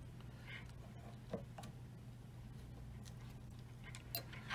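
A few faint clicks and ticks of crimping pliers squeezing an uninsulated butt connector onto a wire, scattered over a low steady hum.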